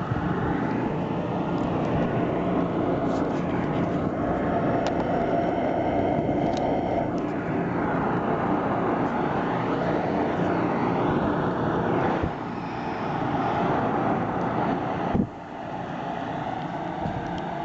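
Carrier WeatherMaker 9200 high-efficiency gas furnace running with its blower on, a steady noisy rush. The level dips about twelve seconds in and drops again a little after fifteen seconds.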